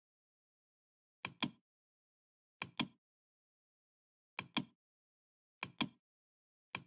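Computer mouse clicks: five pairs of sharp clicks, each pair quick like a double click, spaced about a second or so apart, with dead silence between them.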